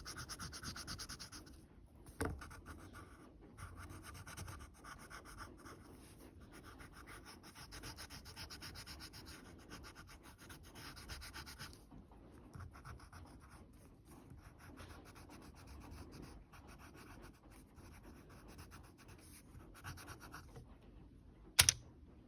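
Drawing strokes on paper: quick, dense scratching and rubbing, heavier for about the first twelve seconds and lighter after. A short knock about two seconds in and a sharp, loud click near the end.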